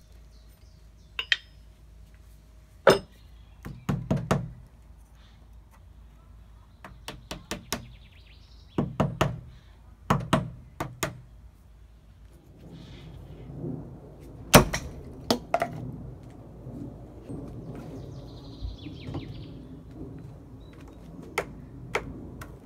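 Thrown axes striking a wooden throwing target (a log-slice disc patched with hardwood), giving sharp thunks and clusters of knocks, the loudest about halfway through. A low rustle runs under the second half.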